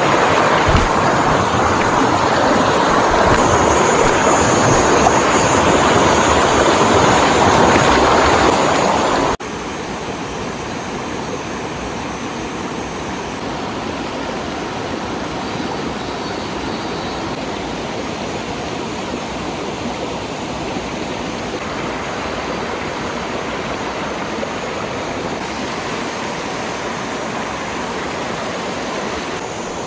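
Shallow rocky stream rushing over stones and small cascades, a steady rush of water. About nine seconds in it drops suddenly to a softer, even flow.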